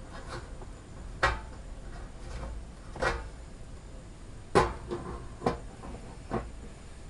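Knocks and clatter of cookware as toast slices are placed in a speckled granite-coated pan on a camping gas stove and its matching lid is set on top: about five separate clacks, the loudest about halfway through.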